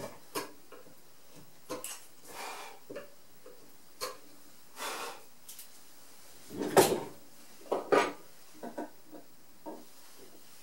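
Carving chisel pushed by hand through hard zelkova wood in short scraping paring strokes, between sharp clicks and wooden knocks. Two louder knocks and clatters come about seven and eight seconds in as the work on the bench is handled.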